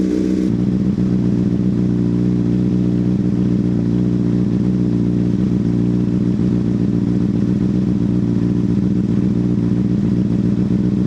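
A 2005 Honda CBR600RR's inline-four engine idling steadily while it warms up, with no revving.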